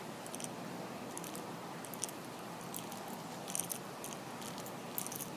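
Monofilament fishing line handled between fingers as the tag end is wrapped through the loop of a Duncan loop knot: scattered faint ticks and rustles over a steady background hiss.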